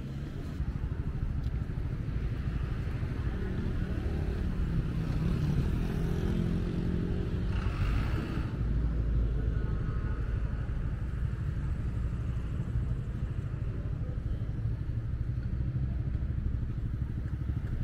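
City street traffic: vehicle engines running and passing in a steady rumble, with one louder pass about halfway through.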